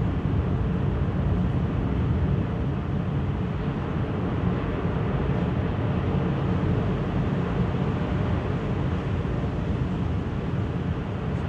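Steady low engine rumble on a ferry's car deck at the dock, heard from inside a camper van's cab.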